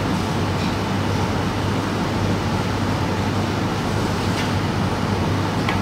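Steady background hum and hiss of the room, with a sharp click near the end as the cue tip strikes the cue ball on a snooker table.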